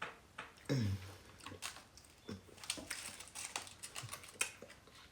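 Close-miked eating sounds of someone chewing soft fufu: irregular wet smacks and clicks of the mouth, several a second, with a short low falling hum about a second in.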